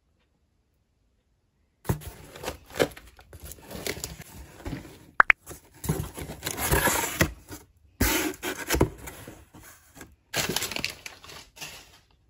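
A cardboard shipping box opened by hand: crumpled kraft packing paper rustling and crinkling and the cardboard flaps scraping, in irregular handling noises starting about two seconds in, with one sharp crack about five seconds in.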